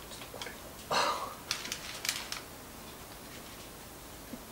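Hasselback potatoes being set down on a parchment-lined metal baking tray. A short rustle of the paper comes about a second in, followed by a few light taps and rustles, then quiet room tone.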